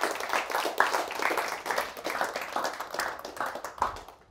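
Small audience applauding, with a few voices mixed in, stopping fairly suddenly near the end.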